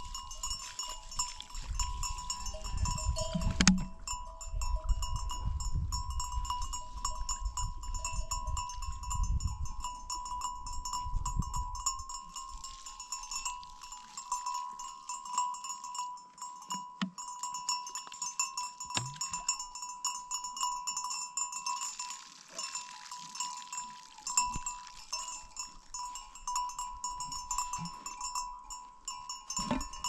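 Bells on a flock of sheep and goats ringing steadily as the animals move, with scattered sharp clinks. A low rumble underneath stops about twelve seconds in.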